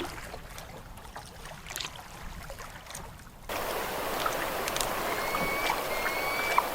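Quiet water and canoe noise with a few light splashes. About halfway through it cuts abruptly to louder water, and young peregrine falcons call repeatedly, short high notes about twice a second.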